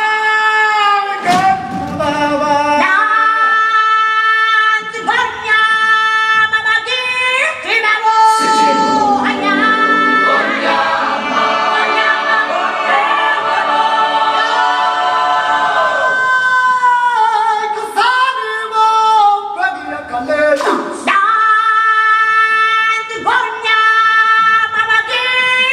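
Choral music: voices singing a chant-like line, with a full choir holding long chords in the middle stretch.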